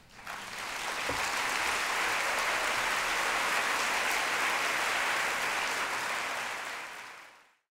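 Large theatre audience applauding steadily; the applause fades away near the end.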